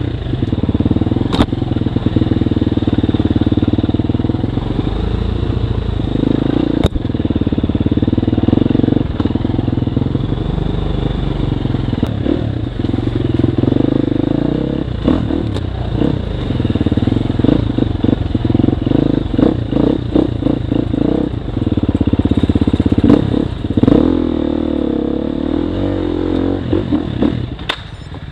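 Dirt bike engine running as it is ridden over a rough trail, the throttle opening and closing, with knocks and clatter from the bumps. The engine drops to a quieter note just before the end.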